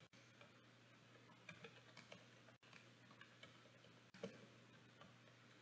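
Faint typing on a computer keyboard: irregular, soft keystroke clicks, the loudest about four seconds in.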